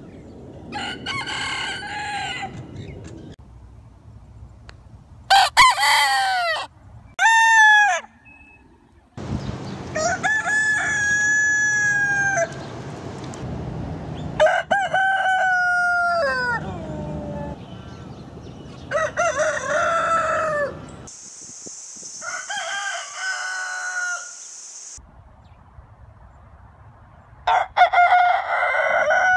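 Roosters crowing one after another, about eight crows in a row, each a drawn-out pitched call that rises, holds and falls away. The background changes abruptly between some crows, as if separate recordings were strung together.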